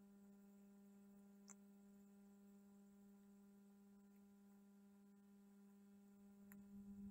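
Near silence: a faint, steady electrical hum, with two faint clicks, one about a second and a half in and one near the end.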